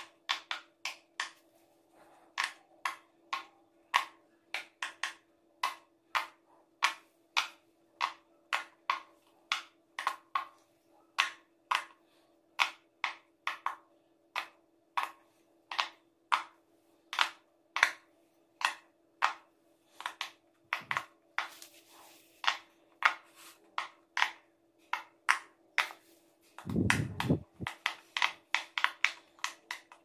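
Fingers pressing the bubbles of a large silicone pop-it fidget toy one by one, a sharp pop about twice a second. About 27 seconds in there is a quicker cluster of pops together with a dull thump.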